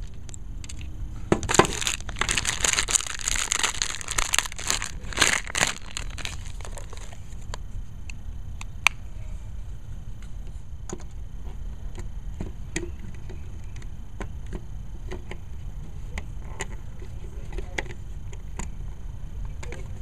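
Crinkling and crackling handling noise for several seconds early on, then scattered small clicks as plastic building-block pieces are handled and snapped together on a Mega Bloks Covenant Banshee toy.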